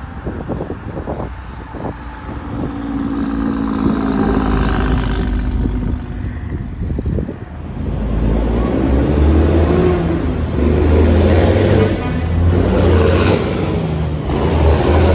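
Semi trucks' diesel engines: first a truck approaching on its Jake brake (engine compression brake), a rapid pulsing rattle that settles into a steady pitched drone, then a Mack tractor hauling a loaded lowboy trailer passes with a loud, deep engine rumble whose pitch rises and falls.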